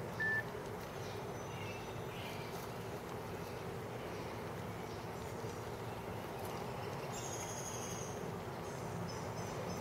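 Steady hum of a honey bee colony at work on the comb inside a Warré hive, with a short high beep right at the start.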